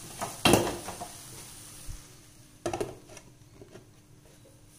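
Glass pan lid with a metal rim being set on a metal frying pan: a sharp clatter about half a second in, then a second knock with a short rattle a couple of seconds later.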